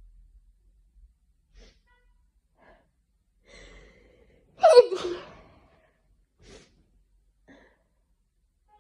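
A person sneezing once from hay fever about halfway through: a short breathy intake, then a loud sneeze whose voice drops in pitch as it trails off. A few faint breaths follow.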